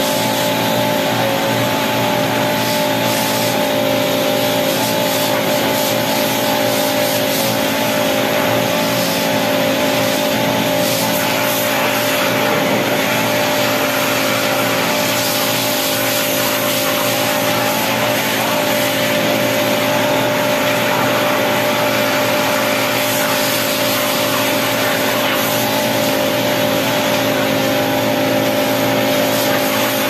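Pressure washer running, a steady motor-pump hum under the loud hiss of the water jet spraying an air-conditioner outdoor unit.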